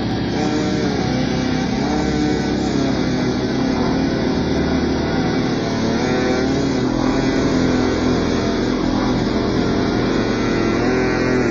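Ultra-slowed, heavily bass-boosted phonk track: a thick, distorted low end under layered sustained tones that bend slowly in pitch.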